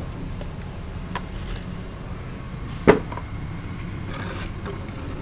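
Handling noises: a faint click about a second in, then a single sharp knock about three seconds in, over a steady low background noise.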